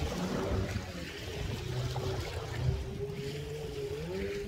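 Engine of a motorized watercraft running steadily, with a low rumble and a single droning note that wavers slightly in pitch.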